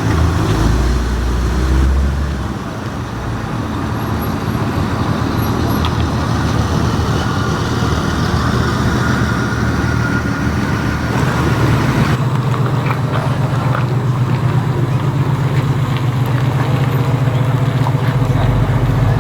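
A car engine running close by with a steady low rumble, which grows heavier about eleven seconds in.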